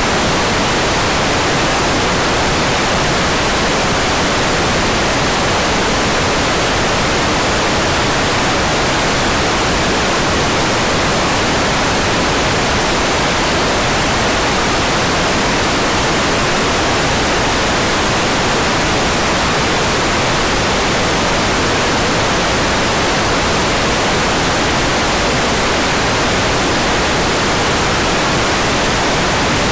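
Hair dryer blowing steadily: an even hiss of air that never changes in level or pitch.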